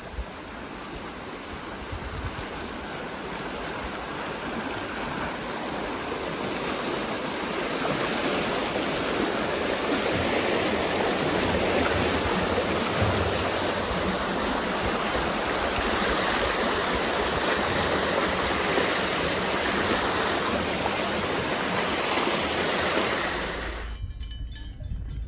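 Steady rushing water, swelling over the first several seconds and then holding level, cutting off abruptly near the end.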